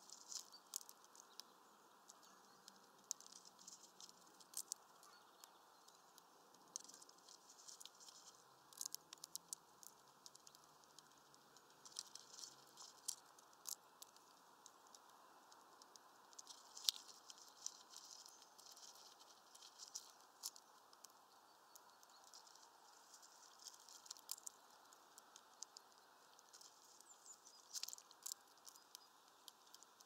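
Eurasian red squirrel cracking open and chewing sunflower seeds: quick, irregular clicks and crunches in clusters every second or two, over a faint steady hiss.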